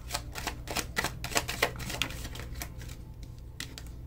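Tarot cards being shuffled and handled: a quick run of crisp clicks and snaps in the first two seconds, thinning to a few scattered clicks after.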